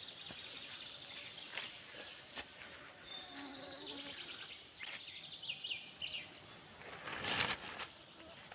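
Forest insects buzzing, mosquitoes among them, with small birds trilling and chirping in the middle. A loud rustle comes near the end.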